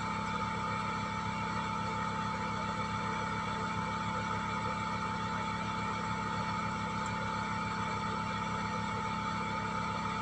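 A small motor whirring steadily, with a constant whine; a short click right at the start.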